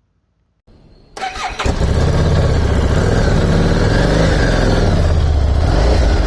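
Harley-Davidson Street 750's V-twin being started: a brief starter whir, then the engine catches about a second in and runs loud and steady through its newly fitted exhaust.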